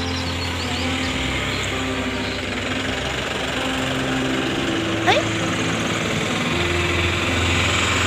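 An engine running steadily at a low pitch, its note shifting slightly twice, with a brief high chirp about five seconds in.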